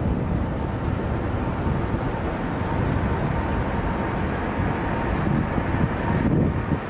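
Jet airliner on landing, its engines a steady loud rumble with a faint high whine held through the middle, and wind buffeting the microphone.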